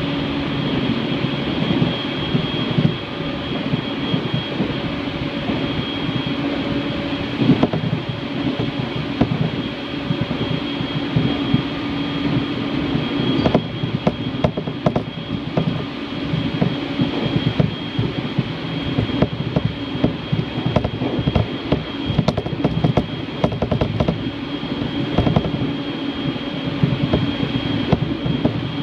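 Passenger train on the Uetsu line running at speed, heard from inside the carriage. Its running noise is steady, with a constant high hum, and from about halfway on there are frequent irregular clicks and knocks of the wheels on the track.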